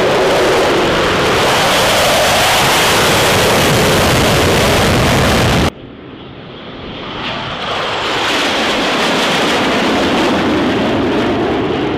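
Jet engine roar from a formation of Blue Angels F/A-18 Super Hornets making low passes. It drops off abruptly about six seconds in, then swells again to a full roar as the jets come through once more.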